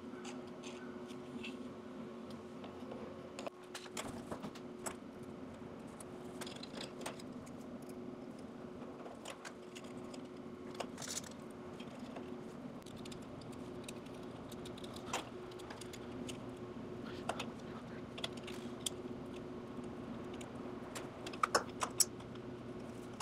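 Small, irregular clicks and taps from tiny neodymium magnets and 3D-printed plastic parts being handled and fitted together, with a few sharper clicks near the end. A steady low hum sits underneath.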